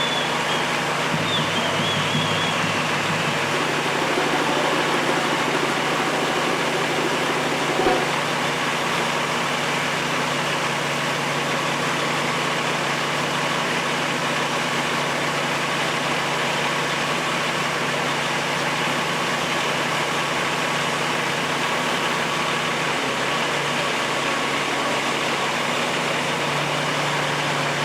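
Vehicle engine idling steadily, with one brief knock about eight seconds in.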